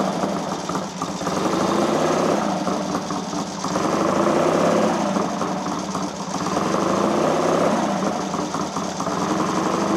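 Triumph parallel-twin engine of a Triton running in gear on a workshop stand, clutch out and rear wheel turning off the ground, while its gearbox is checked. The engine note rises and falls several times.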